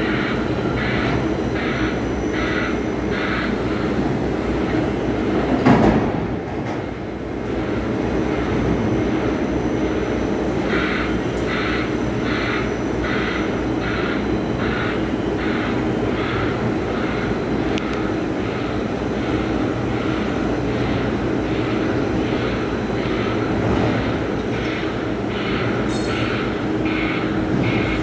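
Container straddle carrier running with a steady machine drone, and a warning alarm beeping about twice a second. The beeping stops for several seconds, then resumes. A single loud thump sounds about six seconds in.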